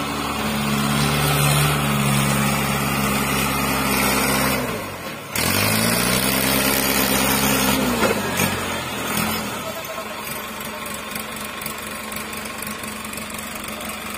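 Mahindra Arjun 605 tractor's diesel engine running loud and steady under the load of a sugarcane trolley. It dips sharply about five seconds in, revs back up, then falls away and settles to a steady idle near the ten-second mark.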